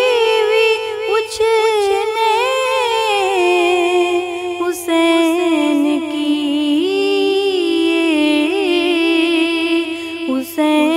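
A woman singing a devotional Muharram kalam in Punjabi, unaccompanied, drawing out long notes that bend and slide in pitch. She breaks off briefly for breath about five seconds in and again near the end.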